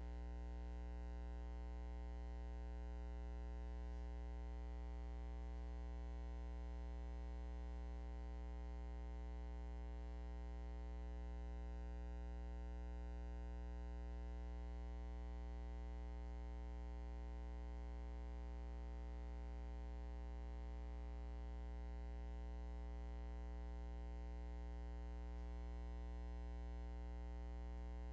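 Steady electrical hum with a ladder of overtones and nothing else, unchanging throughout: the footage carries no live sound, only line hum.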